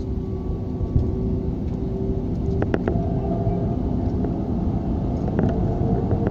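Airliner cabin noise during the landing rollout: a steady low rumble of engines and wheels on the runway, with a steady hum and a few short rattles about halfway through and again later.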